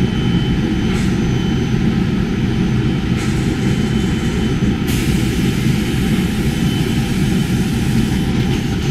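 Steady loud roar of industrial laundry machinery. About five seconds in, a hiss of blowing air grows louder as the Hurricane automatic shirt press blows through a shirt on its mannequin form.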